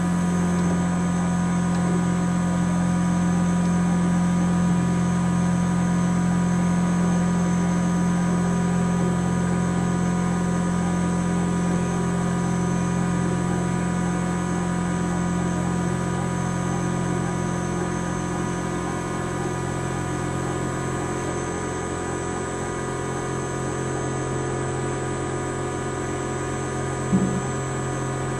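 Milling machine running steadily with its 10mm three-flute end mill cutting a slot in copper bar under power feed on the Y axis, a hum made of many fixed tones. It eases a little in the second half, and a single short click sounds near the end.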